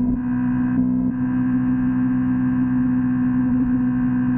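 Kawasaki Ninja motorcycle engine running at steady revs, a constant droning tone that barely changes.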